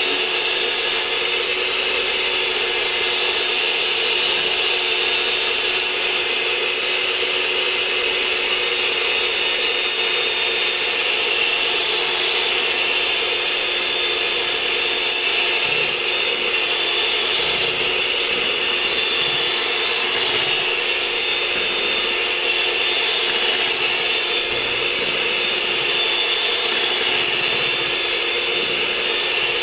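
Electric hand mixer running steadily at one speed, its beaters whipping cream in a plastic basin.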